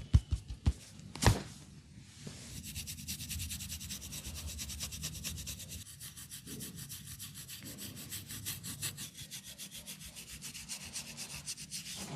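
Hands rubbing briskly over hair and scalp in a head massage, a fast, even swishing rhythm, after a few quick thuds and a sharp click at the start.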